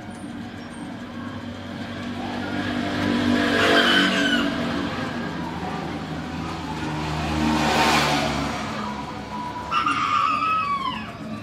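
A motor vehicle passing by twice, each pass rising and fading over a few seconds, with chickens calling near the end.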